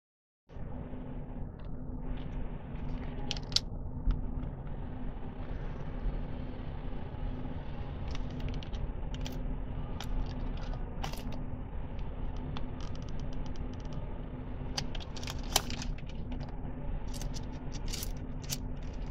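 Plastic and foil coffee packets crinkling and clicking as a hand sorts through them in a wicker basket, in scattered short spells that are busiest in the middle and near the end, over a steady low hum.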